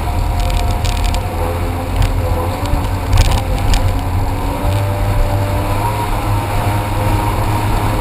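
Jet ski engine running under way, a steady whine that drifts a little in pitch, over a heavy wind rumble on the microphone and a few short ticks.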